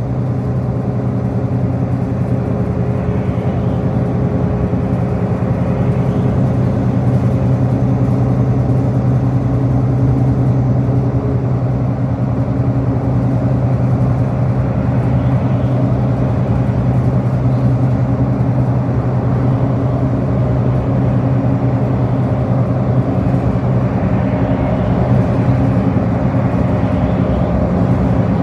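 Bus engine running with a steady hum over road and cabin noise, heard from inside the bus during the ride.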